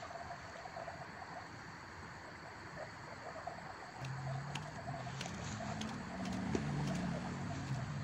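An origami paper jumping frog is pressed down and flicked on a wooden tabletop, making light paper clicks and taps from about four seconds in, the sharpest near the end as it springs away. Under it is a steady chirping, croaking background.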